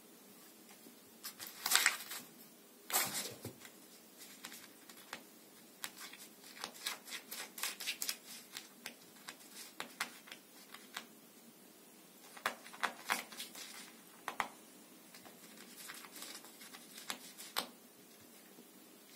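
Magazine pages and covers rustling and crinkling as a cat noses them open and walks over them. It comes in irregular bursts, the loudest about two and three seconds in.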